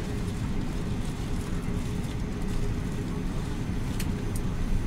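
Airbus A380 cabin noise while taxiing: a steady low rumble from the engines at idle and the rolling airframe, with a faint steady hum. Two brief clicks come about four seconds in.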